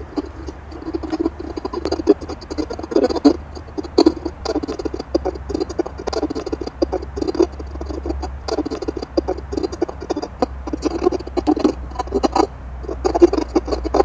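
Ghost box output through a portable speaker: radio noise chopped into rapid broken fragments several times a second, with a steady low hum underneath.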